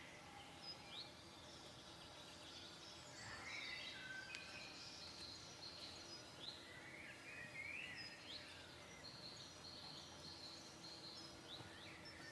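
Faint songbirds singing in spring woodland, scattered short chirps and trills over a quiet steady background.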